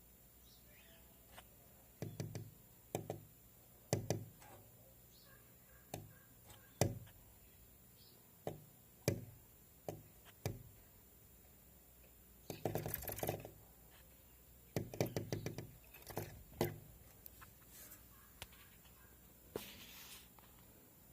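A bird pecking at wood: irregular single sharp knocks, with two longer runs of rapid taps past the middle.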